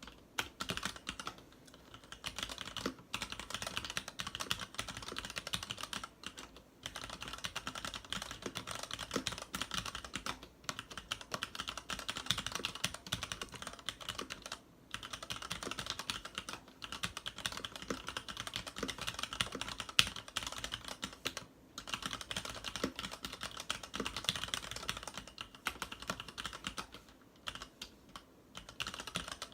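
Continuous fast typing on a Varmilo VA87M tenkeyless mechanical keyboard with Cherry MX Red linear switches and PBT keycaps: a dense patter of keystroke clacks, broken by brief pauses every few seconds, with one sharper keystroke about two-thirds of the way through.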